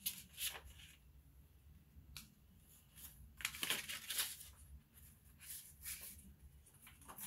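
Sublimation transfer paper peeled off a freshly heat-pressed wooden coaster, and the paper sheets handled, in a few short, faint rustles; the busiest stretch is about halfway through.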